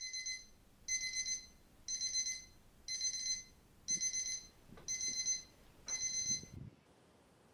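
Electronic alarm beeping: seven short high-pitched warbling beeps, about one a second, then it stops.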